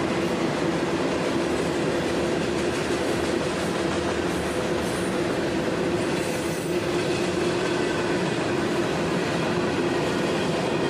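Train rolling past at close range: a steady rumble of wheels on the rails, with a steady tone running through it.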